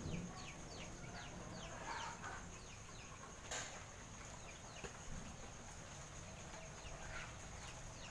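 Small birds peeping: a steady run of short, high chirps that fall in pitch, about two or three a second. A steady high tone runs underneath, and there is one sharp click about three and a half seconds in.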